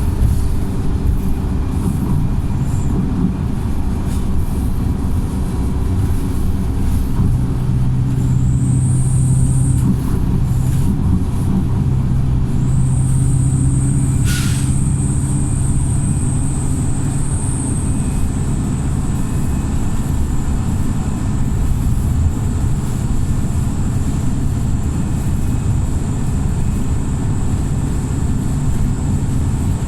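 Wright StreetLite single-deck bus with a remapped diesel engine, heard on board running hard under load. A thin, steady high whistle sits over the engine from about 8 seconds in. About 14 seconds in comes one short, sharp hiss of air: the 'sneeze' this bus is known for.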